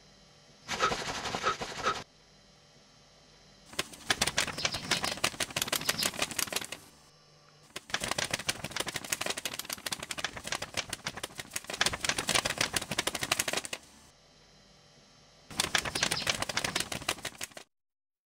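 Rapid, dense clicking in four bursts, a short one about a second in, two long stretches in the middle and a last one near the end that cuts off suddenly.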